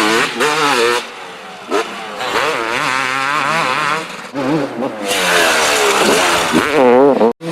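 Kawasaki KX250 two-stroke motocross engine revving hard, its pitch swinging up and down rapidly under throttle, with longer rising runs of acceleration in the second half. The sound cuts out for an instant near the end.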